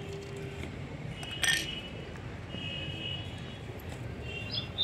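A single light clink of a small steel bowl about one and a half seconds in, over a faint steady background. Birds start chirping near the end.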